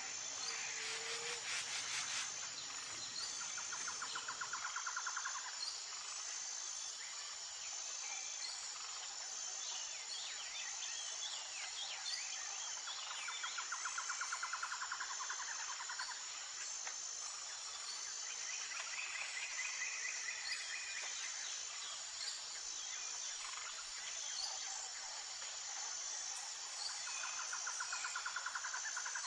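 Outdoor nature ambience: a steady high-pitched insect drone, with scattered bird chirps and a few trills lasting a couple of seconds each.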